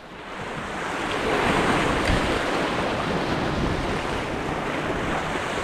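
Sea waves washing and foaming over shoreline rocks, mixed with wind on the microphone. The sound swells over the first second or so and then holds steady.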